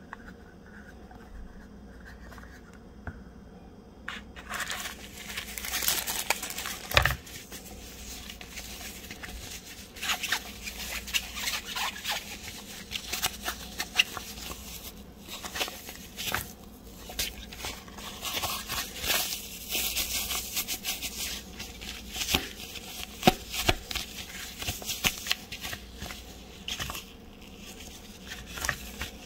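Rustling and crinkling of a fabric drawstring carrying pouch being unfolded and handled, with many small clicks. It starts about four seconds in, and a sharp knock comes about seven seconds in.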